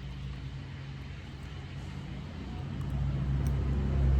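Motorcycle engine running steadily as it passes, a low hum that grows louder over the last second or so.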